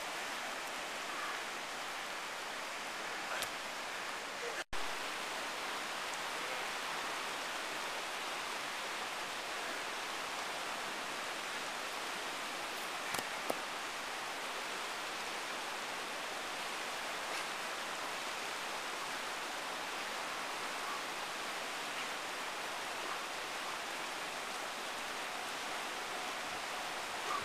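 Steady rush of a fast-flowing river over rapids, with a brief dropout about five seconds in and a couple of faint clicks a little before halfway.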